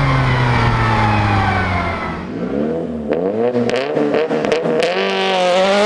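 Nissan Pulsar GTI-R's turbocharged SR20DET four-cylinder engine at speed. The revs fall off for about two seconds, then rise and drop a few times, with scattered sharp clicks. Near the end they climb again under acceleration.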